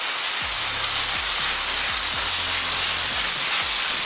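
Chief Steamer 100 commercial steam cleaner jetting steam through a nylon brush attachment: a loud, steady hiss, used here to strip spray paint off plastic.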